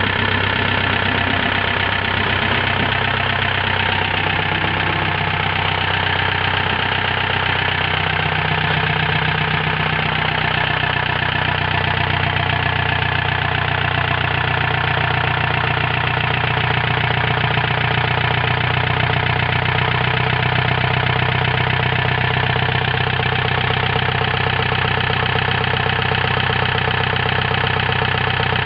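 Mercedes-Benz OM314 four-cylinder diesel engine idling steadily, running again after more than twenty years laid up.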